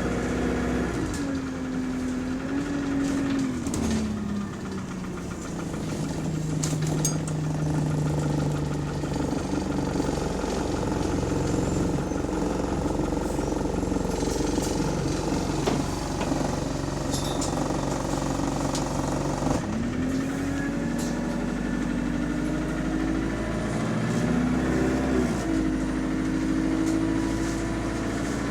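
Bus engine and drivetrain heard from on board. The engine note falls as the bus slows, runs steady for a long stretch, then rises as it pulls away, with a gear change near the end. Scattered rattles and clicks come from the body. The engine is one the title says has rod knock.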